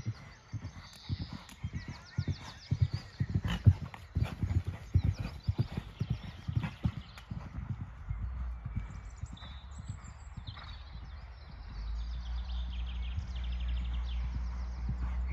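Ridden horse cantering over show jumps on a sand arena: a quick run of hoofbeats that thins out about halfway through, while a steady low rumble comes in and grows louder near the end.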